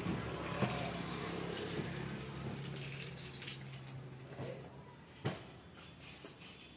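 A low, steady engine hum that fades away over the first four or five seconds, with a few light knocks, the sharpest about five seconds in.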